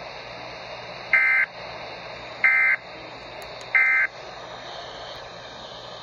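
Three short bursts of SAME digital alert data, each about a third of a second long and about a second apart, played through a Midland weather radio's speaker over steady broadcast hiss. Bursts this short are typical of the end-of-message code of a Weather Radio alert.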